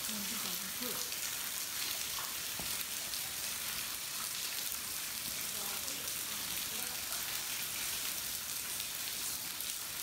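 Spring water falling in thin streams and drips from a rock-shelter overhang and splashing on the rock and ground below, a steady patter.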